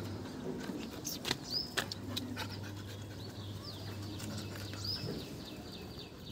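Young Labrador dog panting, with two sharp clicks between one and two seconds in and high, quick chirps over it from about halfway.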